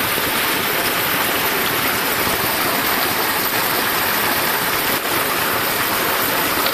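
Small stream pouring over rocks: a steady, unbroken rush of water.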